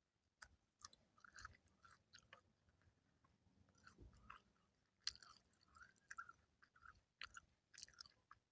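Faint close-up eating sounds: a person chewing, with small irregular mouth clicks.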